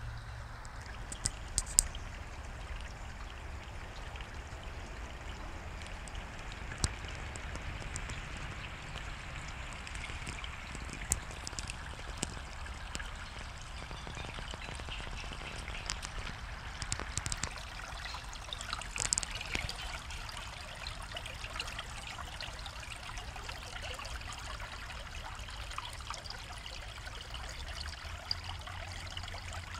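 Shallow stream trickling and burbling over rocks in a steady watery hiss. A few sharp clicks and ticks sit on top, the loudest about two seconds in and again about seven seconds in.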